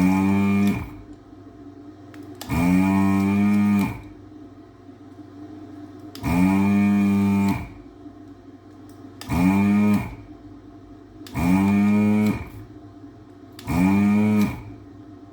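Desoldering gun's vacuum pump switched on six times in short bursts of about a second each, the hum rising in pitch as the pump spins up, then holding steady until released: sucking solder from the pins of a dashboard LCD screen to free it from its circuit board.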